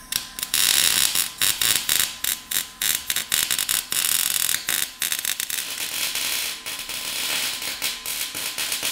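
Electric arc welding on metal: the arc's dense crackling sizzle, starting about a quarter second in and broken by brief pauses as the weld is stopped and restarted.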